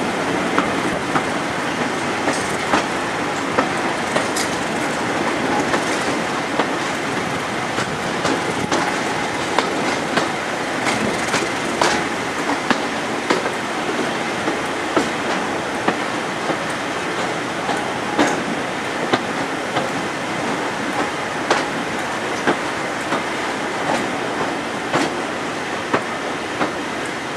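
Class 31 diesel locomotive D5580 running along the line, seen from alongside the locomotive: a steady running noise with a sharp click from the wheels over the rail joints about once a second.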